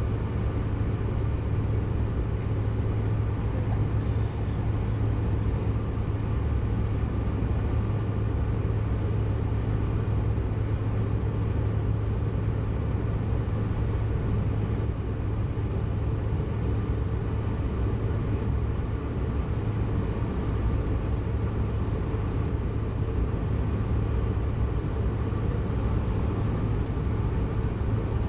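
Steady cabin noise of a Bombardier CRJ900 jet: a constant low hum from the engines under an even rush of noise, with no change in pitch or level.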